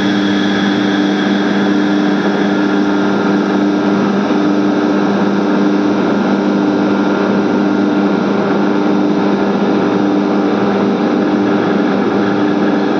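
ELGi screw air compressor running unloaded, a loud steady machine hum with low tones. The motor keeps turning while no air is compressed, so the discharge pressure is slowly falling.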